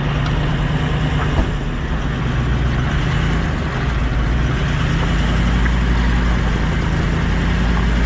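Toyota LandCruiser 79 Series engine running at a steady low note, under an even rushing noise.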